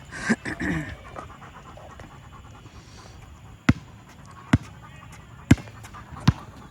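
A basketball bouncing on an outdoor court four times, a sharp slap about once a second, as it is dribbled.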